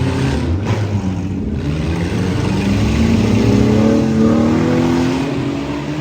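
Several demolition derby cars' engines running and revving together, one engine note climbing from about two seconds in and dropping away near the end.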